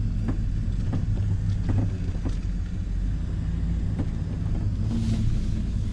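Three-quarter-ton Chevrolet pickup heard from inside the cab while driving a rough dirt trail: a steady low engine and road drone, with several short knocks and rattles as the truck rolls over bumps.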